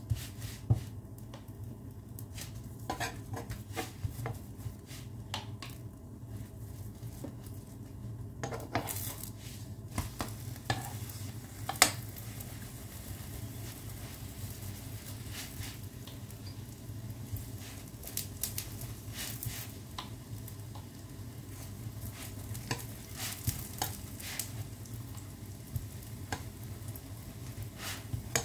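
Chapati frying in a hot pan with a light sizzle, a utensil now and then scraping and tapping against the pan; the sharpest knock comes about twelve seconds in. A steady low hum runs underneath.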